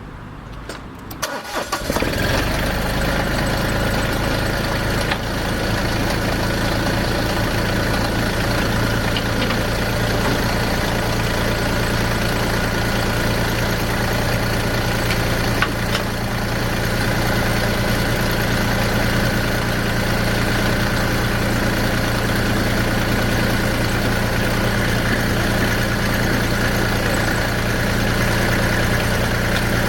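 Massey Ferguson GC2310 compact tractor's three-cylinder diesel engine cranking and catching about two seconds in, then running at a steady speed.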